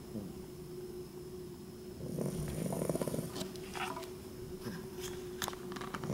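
Sleeping puppy snoring: one fluttering snore lasting about a second, starting about two seconds in, between quieter breaths.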